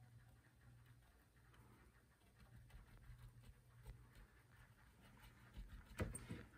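Near silence: faint soft scratching of a small brush blending oil paint on a linen canvas, over a low steady hum, with a light knock near the end.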